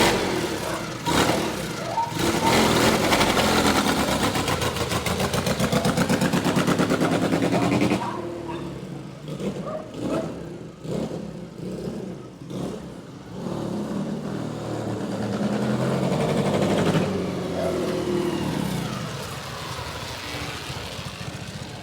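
Classic motorcycle engine running under open throttle, loud with a fast, even firing beat, then easing off about eight seconds in and picking up again with rising revs. It is being tested after carburettor jetting changes, and the revs hold without dropping.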